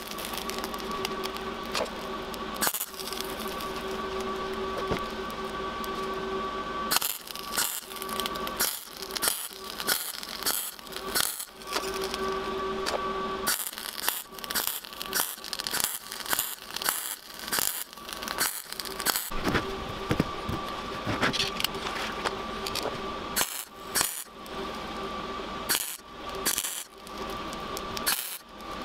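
MIG welder welding a steel motorbike chain, a crackling, spattering arc with a faint steady whine. It runs as one long weld for about seven seconds, breaks into a quick string of short tack welds, runs long again for several seconds, then ends in more short bursts.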